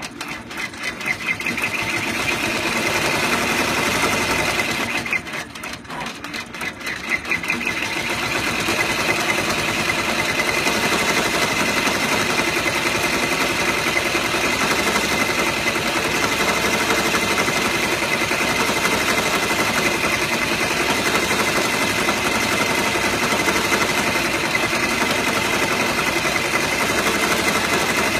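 Six-needle embroidery machine stitching an appliqué, a fast even rattle of needle strokes. It starts up at the beginning, drops back briefly about five seconds in, then runs steadily at full speed.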